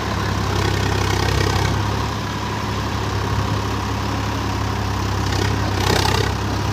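Tractor diesel engine running steadily at low revs, with brief swells of hiss about a second and a half in and again near six seconds.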